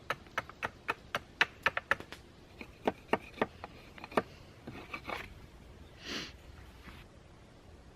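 Wooden sticks being worked with a knife on a table: a quick, irregular run of sharp wooden clicks and knocks over the first four seconds, then a few softer scrapes.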